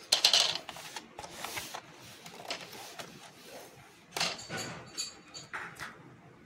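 Plastic clicks, knocks and handling noise from a Philips RM 170 mono cassette player as its top buttons are pressed and the case is moved. The loudest clunk comes right at the start, followed by scattered irregular clicks and rubbing.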